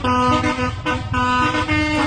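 Telolet horns of two buses sounding together, playing a quick melody of notes that change pitch every fraction of a second, over a low rumble.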